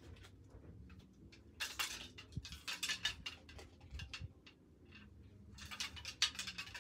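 Rustling and light clicking of things being handled and sorted, in two spells: one from a couple of seconds in, and a shorter one near the end.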